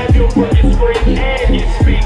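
Hip hop track played loud in a live DJ set, its deep kick drum dropping in pitch on each hit about twice a second.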